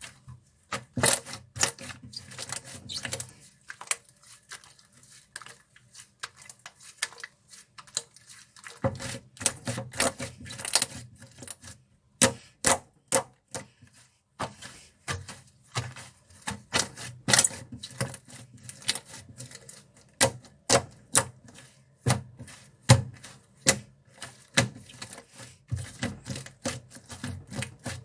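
Thick toffee slime being played with by hand, giving a dense, irregular run of sharp sticky clicks and pops.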